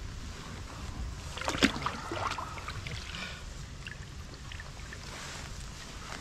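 Water sloshing and splashing close by, with one sharp splash about a second and a half in.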